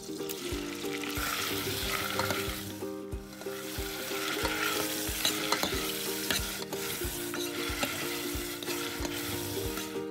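Raw chicken thigh pieces sizzling as they fry in hot butter and oil in a stainless steel saucepan, stirred and scraped with a spoon.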